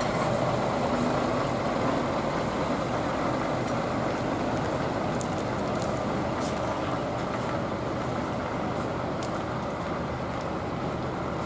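Diesel engine of a Scania rigid truck running as the truck drives slowly past and away, the sound fading a little as it goes.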